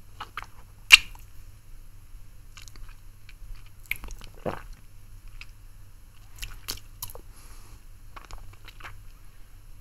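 Close-up mouth sounds of a man sucking on a lollipop: scattered wet clicks and smacks, with one sharp, loud click about a second in.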